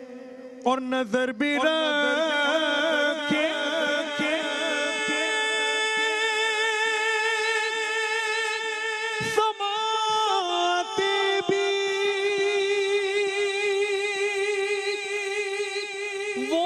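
A man's voice singing a naat unaccompanied into a microphone, holding long wavering notes. There is a short break about nine seconds in.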